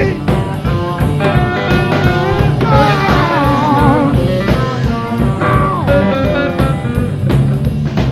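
Live blues-rock band playing, heard straight from the soundboard: a lead line that bends and wavers in pitch over bass and a steady drum beat.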